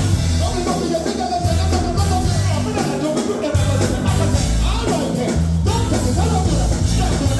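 Reggae or dancehall music playing, with a heavy bass line and a sung vocal.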